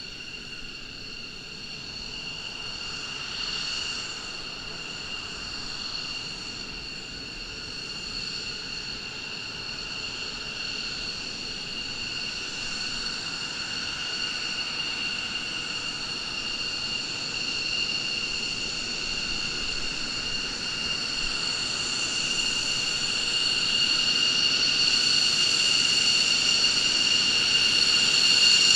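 McDonnell Douglas F-15 Eagle's twin jet engines whining at low, steady power as the fighter taxis toward the microphone. The high whine grows steadily louder throughout.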